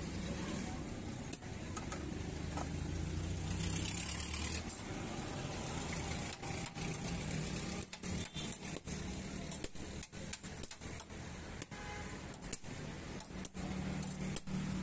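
Steady street noise of running vehicle engines, a continuous low hum, broken from about halfway by many brief dropouts.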